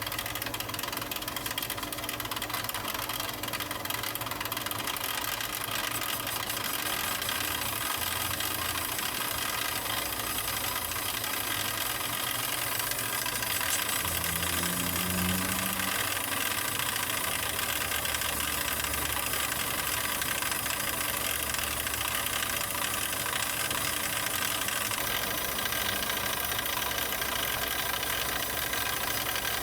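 Steady mechanical running with a hiss spread across the range, as while a brake disc is polished; a low hum swells briefly about halfway through.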